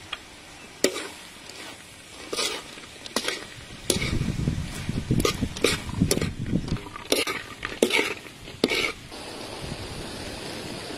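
Bean sprouts and egg being stir-fried on a flat griddle: spatula scrapes and clicks against the hot surface, busiest from about four to nine seconds in, over a light sizzle.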